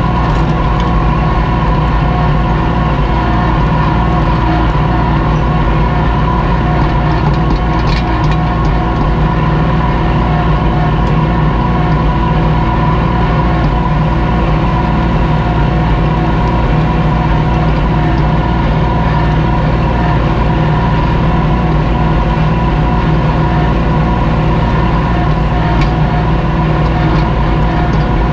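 Kubota L2501 tractor's three-cylinder diesel engine running steadily under load while pulling a disc harrow through sod, with a couple of light knocks along the way.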